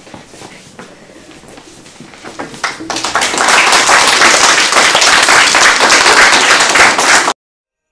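Audience clapping in applause, building about three seconds in and staying loud until it cuts off abruptly near the end.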